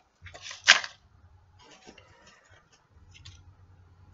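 Packing paper rustling and crinkling as it is handled and pulled out of a subscription box. One sharper, louder crackle comes just under a second in, followed by faint scattered rustles and small ticks.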